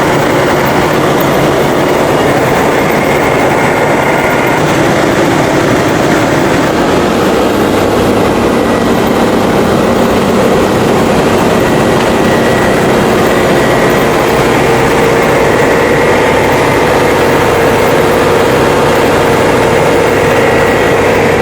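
Claas combine harvester running on test after repair, with its threshing drive engaged: a loud, steady mechanical run of engine and rotating machinery.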